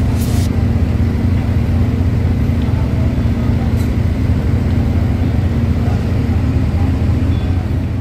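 A large engine of construction machinery running steadily at constant speed: a loud, even low hum that stops abruptly near the end.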